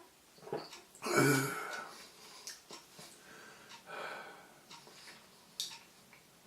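A man breathing out hard through his mouth against the burn of a ghost pepper, loudest about a second in with a brief low voiced sound, and another breath about four seconds in.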